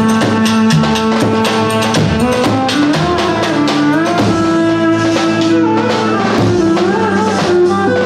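Loud music with a steady drum beat under a held instrumental melody that moves in steps.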